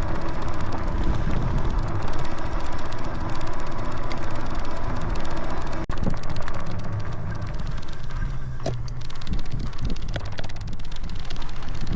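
Dual-motor Philodo Jumbo e-bike riding fast up a steep grade with front and rear motors both driving: steady wind rush over the microphone with tyre and riding noise, and a faint steady whine over the first few seconds.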